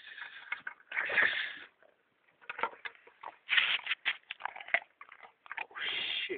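A dog snuffling and mouthing right at the microphone: irregular short bursts of breathy noise mixed with sharp clicks and rubbing.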